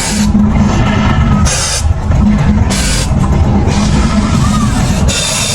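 Loud rock-style music with a heavy drum beat, cut through by several bursts of hiss.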